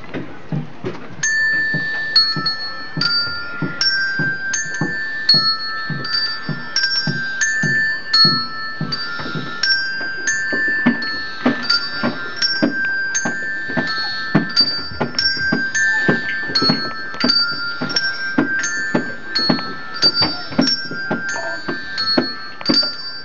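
Gamelan-style music on mallet percussion: high struck metallic notes on a few pitches in a repeating pattern, over a steady low beat about twice a second.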